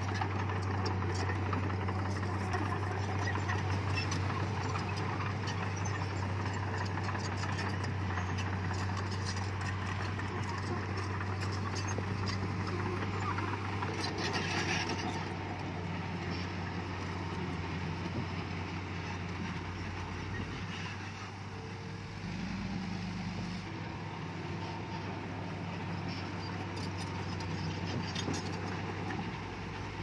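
Diesel engine of heavy earthmoving machinery running steadily with a low hum, with a short harsh noise about halfway through and a slight change in the engine note about two-thirds of the way in.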